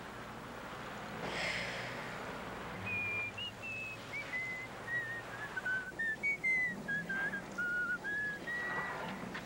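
A person whistling a short tune: about a dozen quick, separate notes starting about three seconds in, mostly stepping down in pitch. Shortly before it there is a brief rushing noise.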